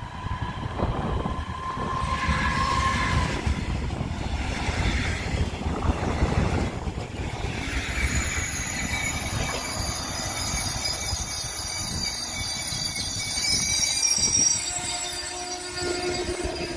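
An ICE high-speed train passing close by, its wheels rumbling on the track. From about halfway through until near the end a high-pitched squeal rings over the rumble, typical of wheels squealing on the rails.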